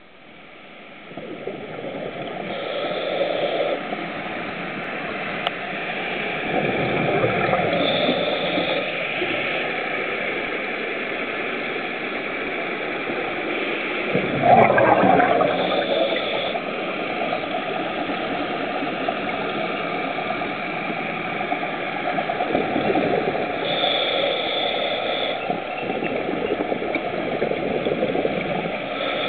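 Scuba regulator breathing underwater: exhaled air bubbling out of the regulator in repeated surges every few seconds, with the loudest burst of bubbles about halfway through.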